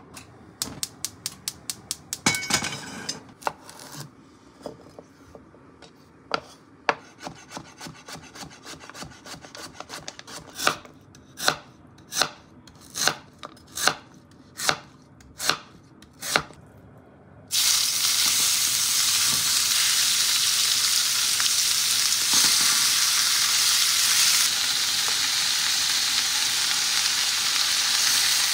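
Chef's knife cutting vegetables on a cutting board: a quick run of strokes, about four a second, then single cuts slicing through lotus root, a little under a second apart. About 17 seconds in, loud steady sizzling starts as sliced pork fries in a hot frying pan, easing slightly when the sliced carrot and lotus root are tipped in near the end.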